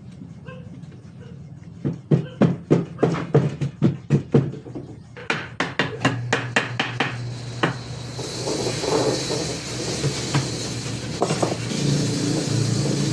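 Hammering on wood: a run of sharp blows, about two or three a second, for some six seconds. About eight seconds in, a steady hiss over a low hum takes over.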